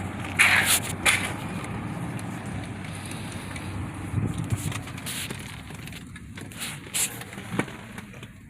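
Steady low rumble of a car moving slowly along the street, with a few sharp clicks and rustles, fading toward the end.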